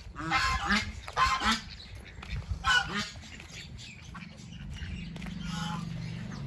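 Domestic white geese honking: three loud honks in the first three seconds, then a fainter one later. A low steady hum comes in about four seconds in.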